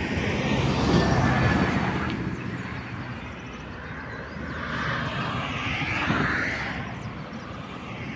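Highway traffic: vehicles going past, their tyre and engine noise swelling about a second in and again around five to six seconds in.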